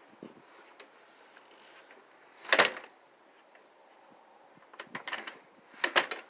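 A house door being handled: a sharp clunk about two and a half seconds in, then a few small clicks and another clunk near the end, like a door and its latch being opened and pulled shut.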